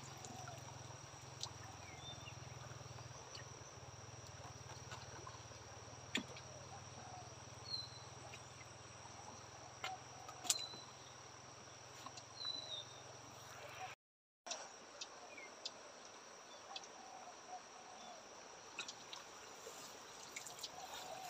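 Steady high-pitched insect trill over a quiet riverside background, with a few faint clicks and short high chirps scattered through. A low rumble underneath stops abruptly about two-thirds of the way in, at a brief gap in the sound.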